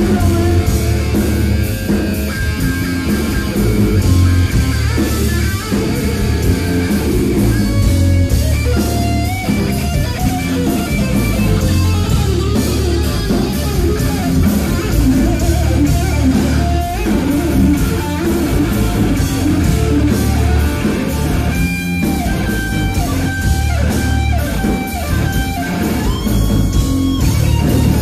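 Hard rock band playing live, with electric guitars, bass guitar and drums, loud and steady throughout.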